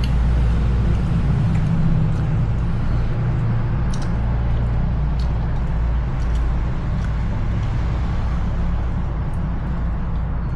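Steady low rumbling background noise with a few faint clicks scattered through it.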